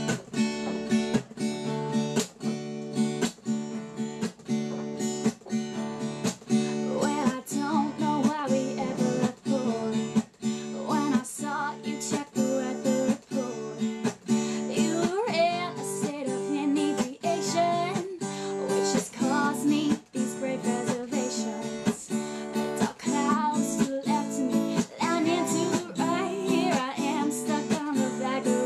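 Acoustic guitar strummed in a steady rhythm, with a melody line coming in over the chords about seven seconds in.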